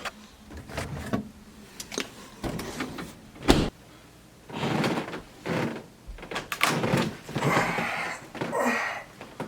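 Indoor handling noises: scattered knocks and clunks with stretches of rustling, and one sharp knock about three and a half seconds in that is the loudest sound.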